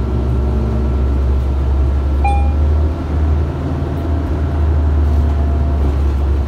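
City bus heard from inside the cabin while driving: a steady low rumble of engine and road noise. A short high-pitched tone sounds about two seconds in.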